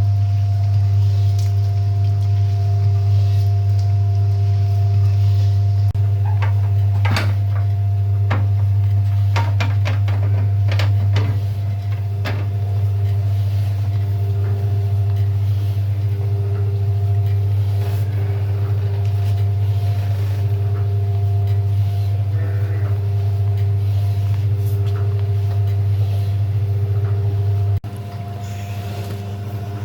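A motor running steadily with a deep hum and a couple of higher steady tones. Scattered knocks and clatters come through it between about six and thirteen seconds in, and the sound drops suddenly in level near the end.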